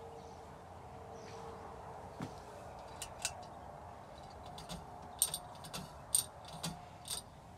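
A string of sharp, light metallic clicks and jingles, bunched in the second half: a ceiling fan's metal bead pull chain being handled and pulled to switch the fan to low speed.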